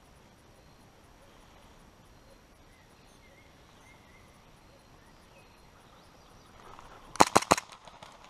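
A short burst of about four airsoft gun shots in quick succession, about seven seconds in, after several seconds of a low background hush with a few faint chirps.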